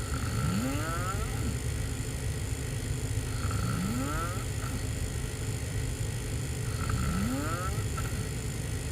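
A person snoring with the mouth open while lying on their back: three snores, about three seconds apart, each a rising note, over a steady low background hum.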